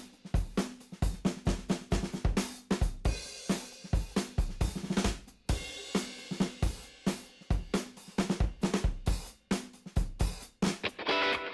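Background rock music: a drum-kit passage with a steady beat.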